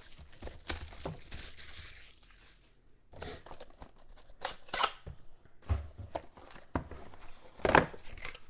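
Hands tearing and pulling apart a cardboard trading-card box: a rough tearing rustle at first, then scattered taps and knocks of cardboard on a tabletop, the loudest near the end.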